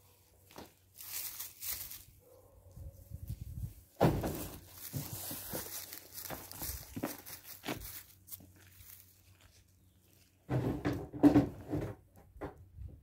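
Knocks, thunks and scraping as things are handled at the back of a pickup truck, with one sharp thunk about four seconds in, followed by a few seconds of rustling and dragging, and another burst of knocking near the end.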